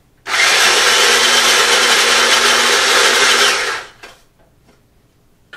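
Small electric nut chopper running for about three and a half seconds, chopping toasted pecans: a loud, steady whir with a low motor hum, starting abruptly and stopping just under four seconds in.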